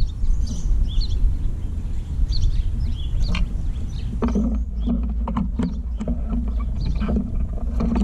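A Carolina wren pecking at sunflower seeds on a mesh platform feeder: from about halfway through, a run of dull knocks at two or three a second. Short high bird chirps come in the first half, over a steady low rumble of wind on the microphone.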